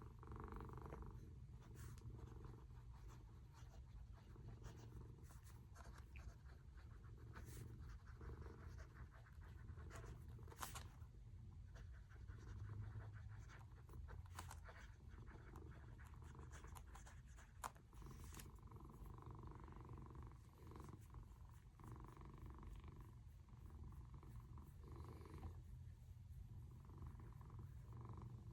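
Near silence: a low steady hum with faint scattered ticks and clicks.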